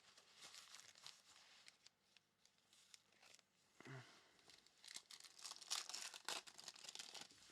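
Faint tearing and crinkling of a foil trading-card pack wrapper being ripped open and handled, a run of quick crackly rips that is busiest in the second half.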